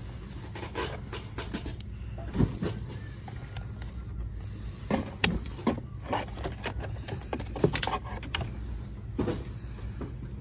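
Scattered knocks and rustles of books and packaging being handled on a store shelf, over a steady low background hum.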